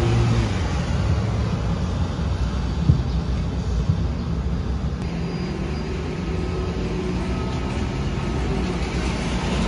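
Steady low rumble of a vehicle, with a hiss that grows louder about halfway through and a single short knock about three seconds in.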